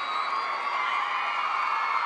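Large crowd cheering and whooping, a steady wall of many voices at once.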